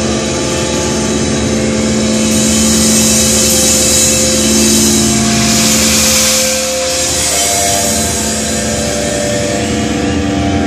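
A thrash metal band playing loud and live: fast, dense drumming with distorted electric guitar chords that change about two-thirds of the way through.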